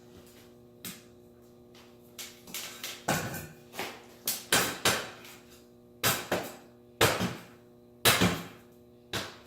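A series of clunks and knocks, about one a second, as the rear of a home-built ski bike is tipped back and its bungee-restrained rear pivot springs back to center.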